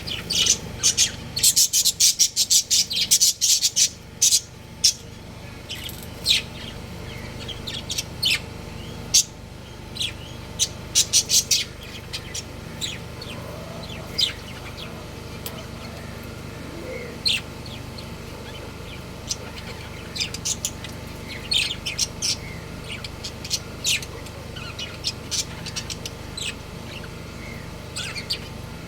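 Budgerigars chirping: a rapid run of loud, high chirps in the first few seconds, then scattered chirps in short clusters.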